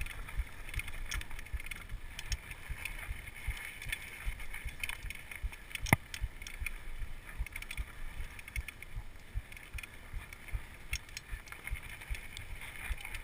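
Downhill mountain bike rolling over rough ground, heard through a chest-mounted GoPro housing: a continual run of low knocks and rattles, with one sharp knock about six seconds in.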